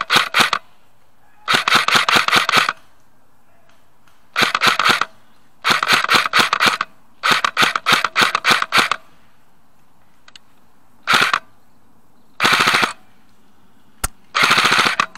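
Airsoft electric rifle (AEG), a Nuprol Jackal Alpha, firing full-auto in about eight short bursts of rapid clicking shots, separated by pauses, with one single shot near the end.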